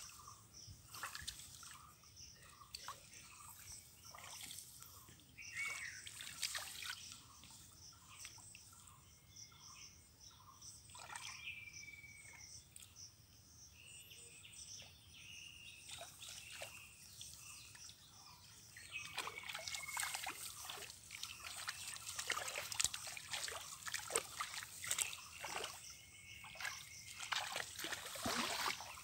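Shallow muddy water splashing and sloshing as someone wades and gropes through it by hand, busier and louder in the last third. Short high bird calls now and then.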